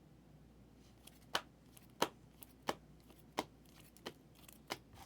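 Trading cards being handled on a table: a short series of sharp clicks or snaps, about six, each roughly two-thirds of a second after the last.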